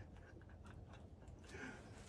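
Near silence with a few faint, scattered ticks: the clicking of a battery-powered ultrasonic rodent repeller as its LED strobe flashes.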